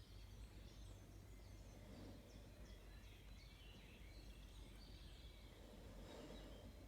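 Near silence: faint outdoor background with small birds chirping now and then over a low steady hum.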